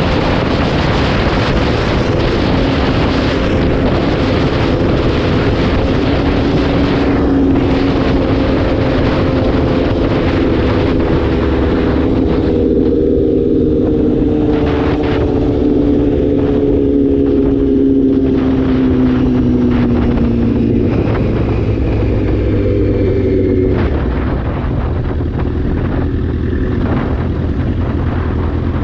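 Sport motorcycle engine running at road speed with wind noise on the microphone. The engine note falls slowly as the bike decelerates. For the last few seconds it runs at low revs and quieter, with less wind.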